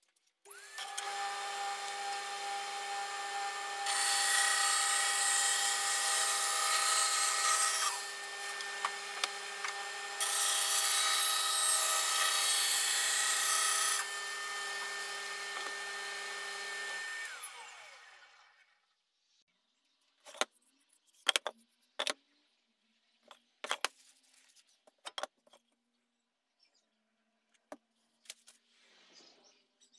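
Kity bandsaw starts up and runs steadily, cutting a wooden board in two louder stretches of a few seconds each. It is then switched off, its whine falling as the motor winds down. A scatter of short knocks and taps follows.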